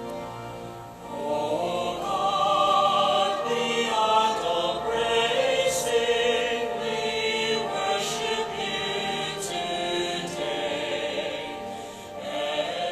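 Choir singing, the voices rising in strength about a second in and easing off near the end.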